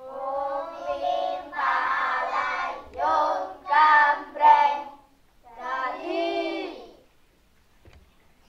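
Children singing a short song together in a few sung phrases. There is a brief pause about five seconds in, and the singing stops about seven seconds in.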